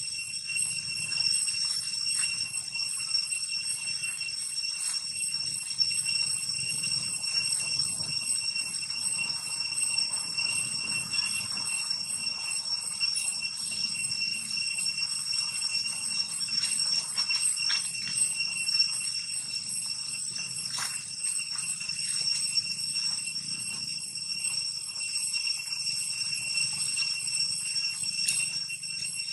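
A continuous, high-pitched insect chorus: a fast, even pulsing shrill drone of insects such as cicadas in the forest. Now and then there are soft rustles, likely from macaques scuffling on dry leaves.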